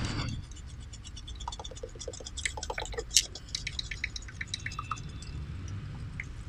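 Pop-pop boat's candle-heated boiler running: quick, irregular little pops and drip-like blips as water pulses through its straw exhaust tubes. It ends in one sharp click.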